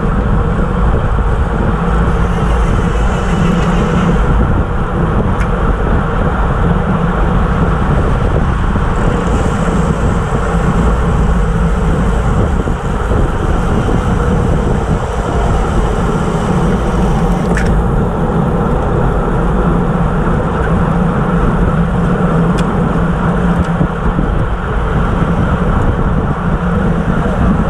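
Steady rush of wind buffeting an action camera's microphone on a road bike moving at about 25–28 mph in a race pack, with the rumble of tyres on asphalt underneath.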